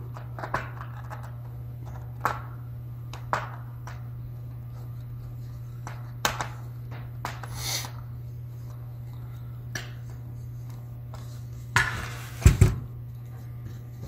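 Scattered light clicks and taps of a hand screwdriver working a screw into a laptop's plastic top case, over a steady low hum. A few louder knocks come near the end.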